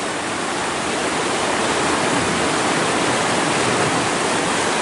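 Rushing water churning through a stone-lined irrigation channel at a sluice: a steady, loud, even noise.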